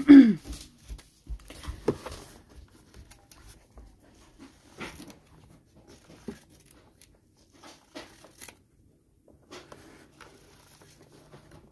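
A clear plastic display case holding a mini football helmet being handled and turned in gloved hands: scattered light clicks, knocks and rustles.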